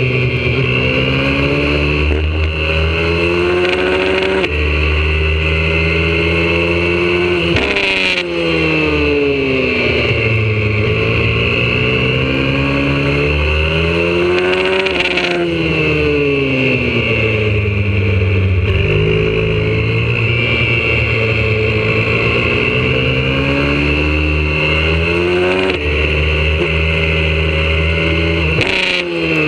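YCF 125cc four-stroke pit bike engine at racing pace, revs climbing with brief breaks at gear changes, then falling away as the throttle closes for each corner, over and over.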